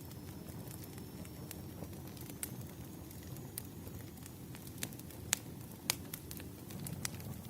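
Wood fire crackling: a low, steady rush of burning logs with sharp pops every second or so, the loudest about five seconds in.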